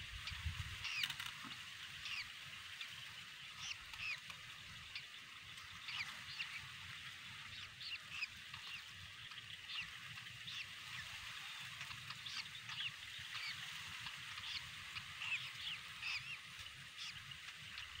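Bittern chicks begging in the nest: many short, high calls that sweep up or down in pitch, coming irregularly and sometimes several a second, over a faint low rumble.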